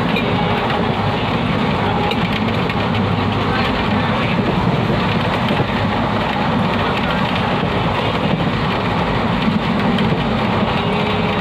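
Steady running noise of a moving Indian Railways passenger train, heard from inside the coach: the wheels rolling on the rails and the coach rattling, with no breaks.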